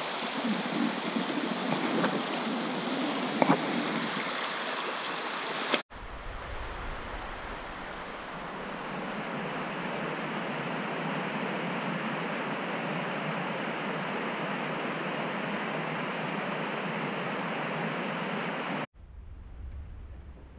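Fast mountain creek rushing over rocks, a steady wash of water noise that breaks off abruptly about six seconds in and picks up again. Near the end it gives way to a much quieter low rumble.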